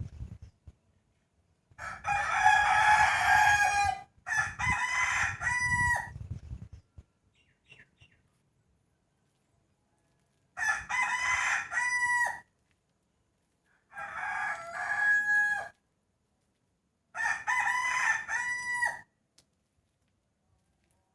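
Domestic rooster crowing: five crows, the first two back to back and the rest a few seconds apart, each ending in a held high note.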